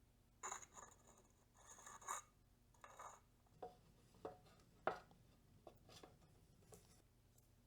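Faint handling noises: three short rustles in the first three seconds, then six small clicks and taps, the loudest about five seconds in, as headset parts are handled during assembly.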